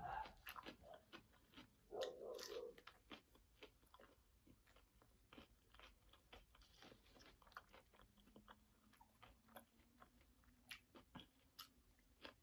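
Quiet close-miked chewing: crunchy bites and small wet mouth clicks of someone eating breaded fried chicken strips. There is a brief muffled sound about two seconds in.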